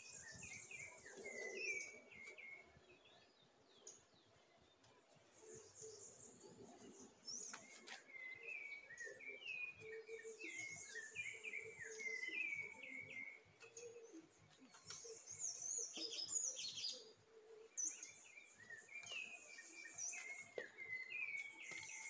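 Birds calling, faint: runs of short, quickly repeated falling chirps, with thinner, higher chirps over them.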